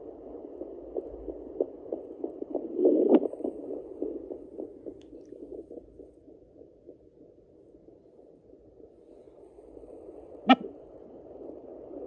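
Sonoline B fetal Doppler's speaker playing a rapid whooshing heartbeat from inside a pregnant Yorkie's belly, about three beats a second with the display reading around 181 per minute, which the owner takes for a puppy's heartbeat. About three seconds in, the probe scrapes louder across the skin. The beats then fade as the signal is lost, and a sharp knock comes near the end.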